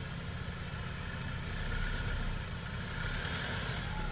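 Off-road vehicle's engine running at low revs, creeping over a ledge, with a slight rise in level about two seconds in.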